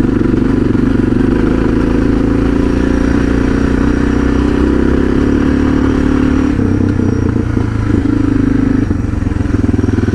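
Suzuki DR650's single-cylinder four-stroke engine running as the bike is ridden along a rough dirt track, its note changing about six and a half seconds in and again near nine seconds.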